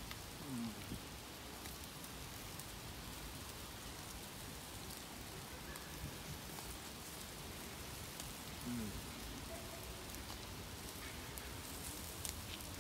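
Steady sizzling hiss with scattered light crackles from lamb kebabs on metal skewers cooking over hot charcoal.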